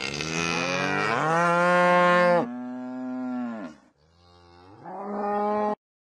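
Cattle mooing. A long moo of nearly four seconds rises in pitch partway through, then a shorter moo cuts off suddenly.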